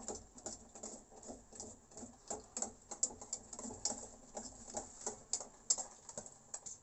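Irregular light clicks and taps, several a second, from a spoon stirring a thickening milk mixture in a cooking pan.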